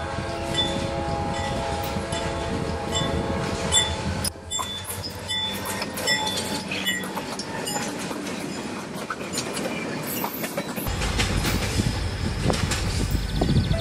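Diesel-hauled CSX freight train passing close by: the locomotive's engine running, then the wheels clacking and knocking over the rails as the cars go by. A low rumble grows louder near the end.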